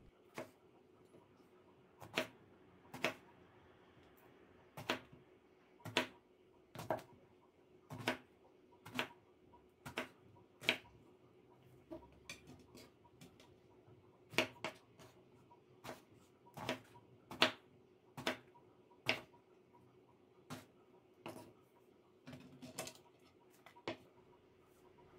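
Kitchen knife cutting an eggplant into thick diagonal chunks, each stroke ending in a sharp knock of the blade on a wooden cutting board, roughly once a second with uneven gaps.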